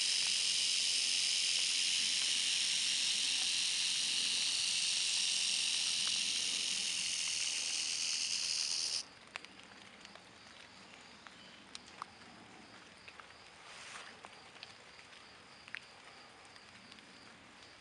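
Timber rattlesnake rattling its tail: a steady, high buzz that cuts off suddenly about nine seconds in. After that only a few faint clicks remain.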